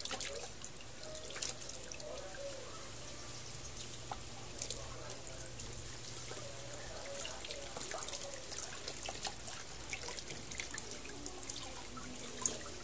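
Water from a garden hose trickling and splashing onto a wet puppy standing in a plastic basin of water, as hands rinse her fur.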